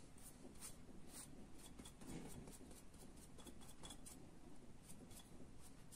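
Faint, scratchy strokes of a paintbrush dragged across wet watercolour paper, a few short strokes each second.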